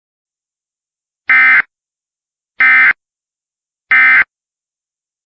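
Emergency Alert System end-of-message (EOM) data tones: three short, identical bursts of digital data sound, about a second apart. They signal the end of the alert.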